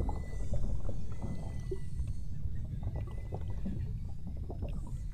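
Underwater hydrophone sound: a steady low rumble of moving water, with faint thin whistles and scattered clicks from beluga whales.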